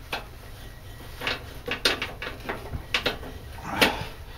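Irregular knocks, clicks and scrapes of hands working a replacement drive belt onto a snowblower, about half a dozen separate clunks with the loudest near the end.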